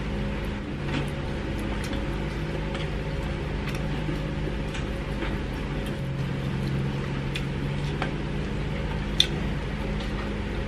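Eating sounds of rice taken by hand from a metal plate: chewing and mouth clicks, with scattered small clicks and a sharper one about nine seconds in. A steady low hum runs underneath.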